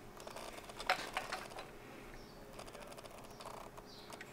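Faint clicks and light rubbing of fingers working a peep sight in the strands of a compound bowstring, the sharpest click about a second in.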